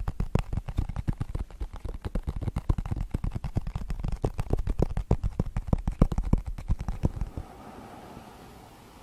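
Long fingernails tapping quickly on a cardboard eyeshadow palette close to the microphone, many crisp taps a second. A little past seven seconds in the tapping stops and gives way to the soft, quiet swish of a paddle brush going through a synthetic wig's hair.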